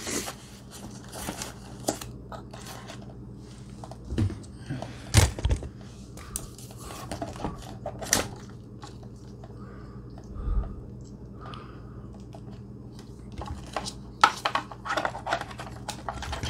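Hands handling battery packs, wires and plastic connectors inside a scooter's plastic deck: scattered clicks, taps and rustles, the sharpest about five and eight seconds in and a cluster near the end, over a steady low hum.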